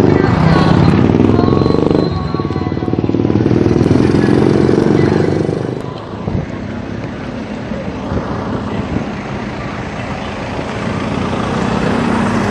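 A motorcycle engine running close by for about the first six seconds, then fading away, leaving a lower steady hum of road traffic.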